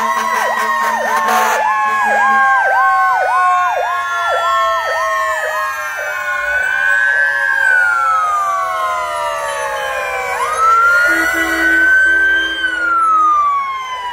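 Several emergency vehicle sirens sounding together as fire engines pass: a fast yelp repeating about twice a second for the first six seconds over long wailing tones that slowly fall in pitch. About ten seconds in, a siren jumps up in pitch and winds down again, with a low horn-like blare for a couple of seconds.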